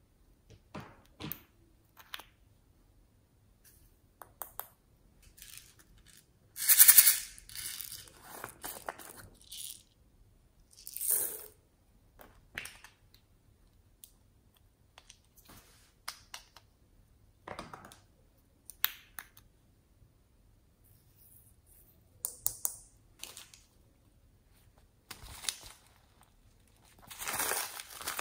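Close handling of small plastic toys, containers and packets: scattered clicks and taps with short rustling bursts, the loudest about 7 seconds in. Near the end a plastic bag of seed beads crinkles as it is picked up.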